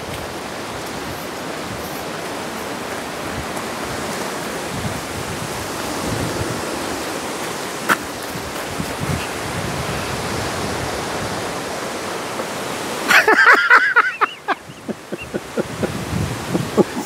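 Steady rushing hiss of wind on a lapel microphone outdoors. About thirteen seconds in, a brief loud pitched call cuts through.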